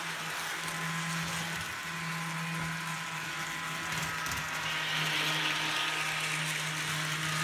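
Model train locomotive running along the track at about half speed: a steady electric motor hum with gear and wheel whir, the whir growing louder a little past the middle.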